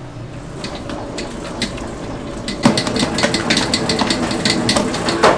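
A busy clatter of sharp clicks and knocks over a steady low hum, getting denser and louder about halfway through.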